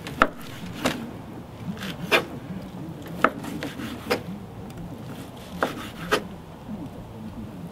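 Kitchen knife cutting grilled chicken breast into cubes on a wooden cutting board: about seven sharp knocks of the blade meeting the board, irregularly spaced, with soft rubbing between them.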